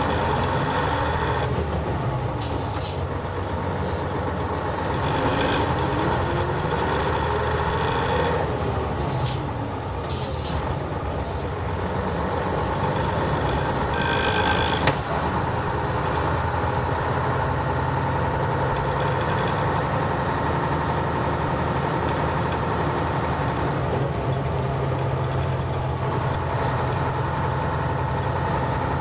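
Nissan Diesel city bus heard from the floor inside the cabin: its diesel engine pulls with the pitch climbing over the first several seconds, then eases off. A sharp click comes about halfway through, and the engine then runs on steadily.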